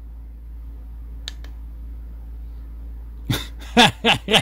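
Steady low hum with a single faint click about a second in; near the end a man's voice starts up loudly.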